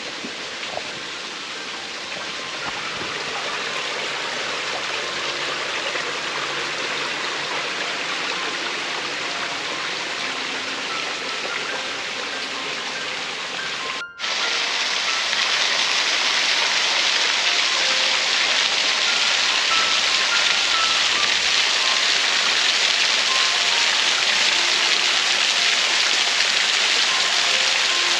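A soft steady hiss, then, after a brief dropout about halfway through, the louder, steady rush of a small waterfall spilling off a limestone ledge and splashing onto the rocks below.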